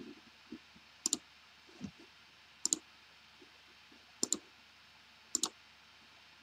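Computer mouse buttons clicking: four pairs of sharp clicks, about a second and a half apart.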